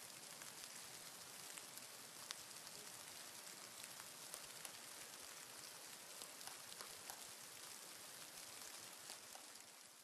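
Near silence: a faint, steady hiss with scattered soft ticks at irregular moments.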